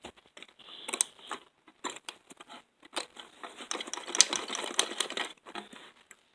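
Scattered small clicks and rustling of plastic and metal parts being handled and pried apart from a dismantled portable stereo, busiest in the second half.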